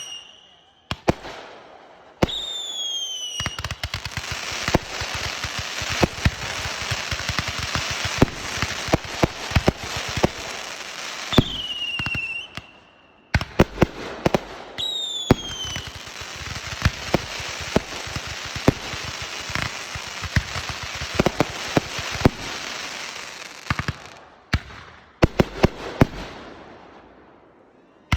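Consumer fireworks going off: shrill whistles falling in pitch, then a long stretch of dense crackling peppered with sharp pops. A few last pops come near the end.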